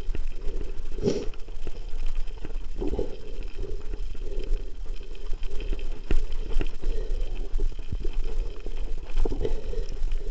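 Mountain bike rolling fast over loose gravel: tyres crunching on the stones and the bike rattling with dense, irregular clicks and knocks over each bump, over a steady low rumble.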